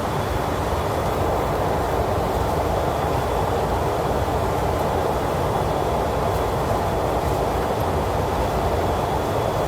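Steady flight-deck noise of an Airbus A330 in descent: a constant rush of airflow over a low rumble, with a faint steady high tone.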